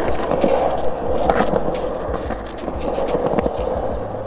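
Skateboard wheels rolling steadily over a concrete skatepark bowl, a continuous rumble with a few light clicks.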